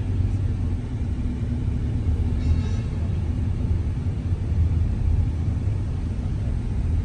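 Steady low rumble of a moving road vehicle, with a faint constant hum underneath.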